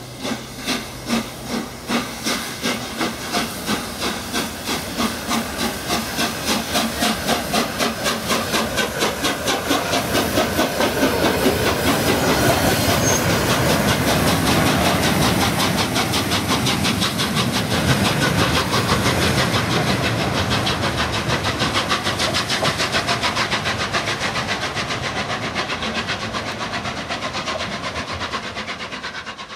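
Peppercorn Class A1 steam locomotive 60163 Tornado, a three-cylinder Pacific, pulling away from a stand. Its exhaust beats start at about two a second and quicken steadily until they run together, over a steam hiss; the sound grows loudest as it passes and fades as it draws away.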